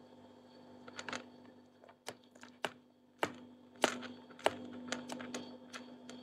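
Fingers tapping on a phone's touchscreen: faint, irregular clicks, about ten in all, a few of them in quick pairs.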